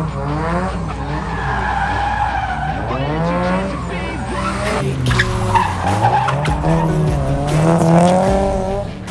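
Race car engine revving, its pitch rising and falling several times, with tyre squeal.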